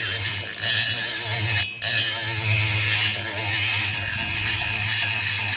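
Rotary die grinder running and cutting metal at the exhaust port of a Husqvarna 266SE chainsaw cylinder, widening the port. It runs steadily, dips briefly about one and a half seconds in, then carries on.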